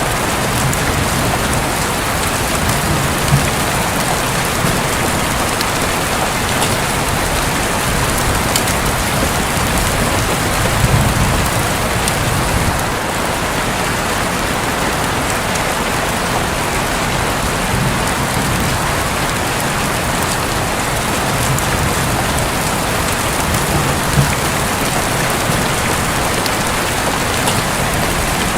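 Steady heavy rain falling on a roof, with soft low rumbles of thunder swelling up a few times.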